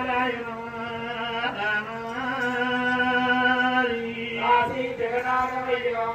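A man singing in Oggu Katha folk style, a chant-like line of long held notes in three phrases, sliding up into the last one.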